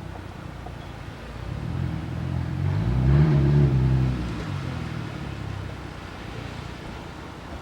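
A motor vehicle passing by: a low engine rumble swells to its loudest about three seconds in, its pitch bending as it goes past, then fades away.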